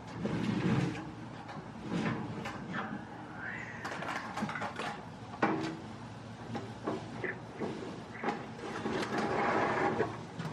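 Kitchen handling sounds: scattered clicks and knocks of cookware being moved about.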